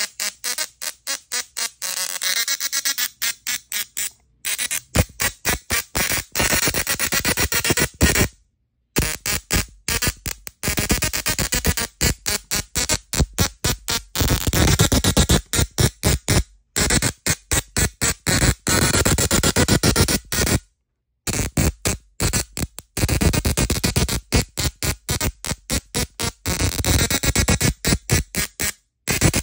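Small desktop musical Tesla coil playing a tune through its spark discharges: rapid, buzzy staccato notes with a few short pauses, stopping suddenly at the end.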